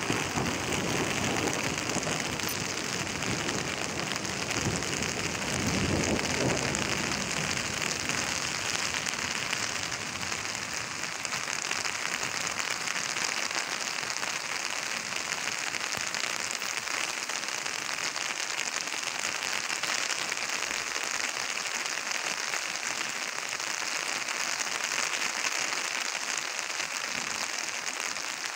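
Heavy rain falling steadily, a dense even hiss of drops. A low rumble comes and goes during the first several seconds.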